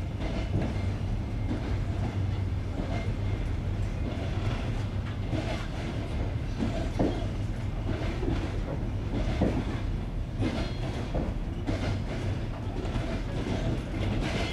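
Passenger train wheels knocking over the joints of jointed (non-welded) rail, heard from inside the moving train, over a steady low rumble of the running carriage.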